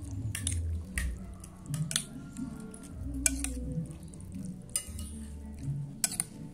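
Metal spoon clinking and scraping against a ceramic plate while scooping up rice and soup, with about half a dozen sharp clinks scattered through.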